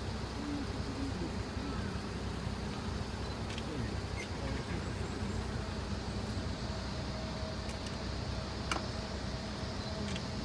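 Steady outdoor rumble and hiss, with faint distant voices and a single sharp click about nine seconds in.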